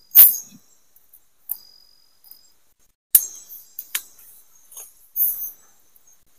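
Sparse sharp clicks and crackles from a small cooking fire of thin twigs, with the hung pot knocking on its bamboo pole. The loudest click comes right at the start and another about three seconds in. A faint high cricket trill runs for about a second, starting a second and a half in.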